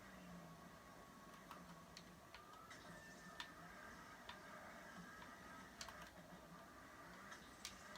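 Near silence: room tone with a few faint, irregularly spaced clicks.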